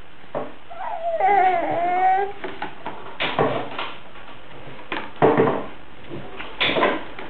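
A baby squealing once, a wavering, gliding vocal sound about a second and a half long, followed by three short knocks spread over the next few seconds.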